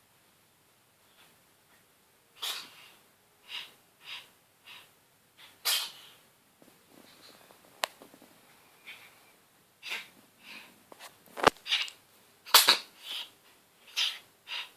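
A ginger cat sneezing about a dozen times in short, sharp bursts, several coming in quick pairs, from a cold.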